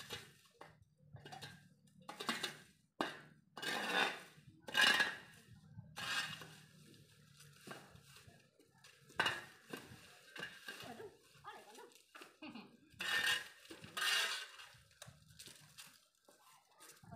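Metal shovel blade scraping across a concrete road and scooping dry leaves and twigs, in a series of irregular scrapes and clinks a second or more apart.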